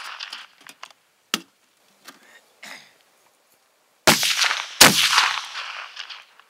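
Mosin-Nagant M44 carbine in 7.62x54R fired with ball ammunition: the echo of a shot dies away, a few clicks of the bolt being worked follow, then two loud rifle shots come less than a second apart, each with a long echoing tail.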